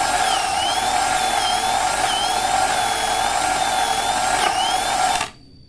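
Electric power-tool motor running steadily at speed, with a high wavering tone that dips and rises about once a second. It cuts off suddenly about five seconds in.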